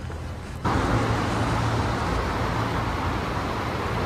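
Steady outdoor street ambience, an even continuous rush, cutting in abruptly about half a second in after a quieter start.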